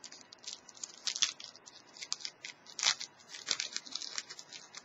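Foil wrapper of a 2012-13 Panini Past and Present basketball card pack crinkling and tearing as it is opened by hand. It gives irregular crackles, loudest about a second in and again near three seconds.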